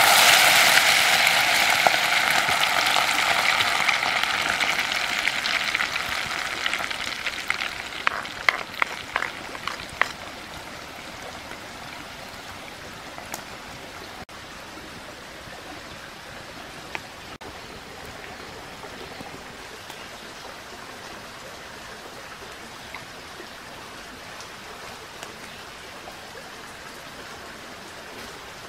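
Chopped green onions and chillies sizzling loudly as they hit hot liquid in a clay pot over a wood fire; the sizzle fades over about ten seconds, with a few sharp clicks near its end. After that a creek's steady rushing is heard.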